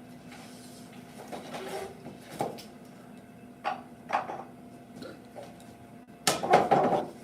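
Hand chisel work on a timber joint: a chisel scraping and paring the wood, with a few short knocks of tool on wood. The loudest burst of scraping and knocking comes near the end.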